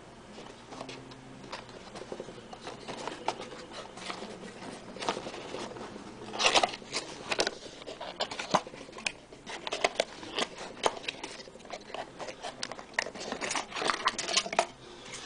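Hands handling an AMD stock CPU cooler in its box: a run of irregular clicks, taps and rustles, loudest about six and a half seconds in and again near the end.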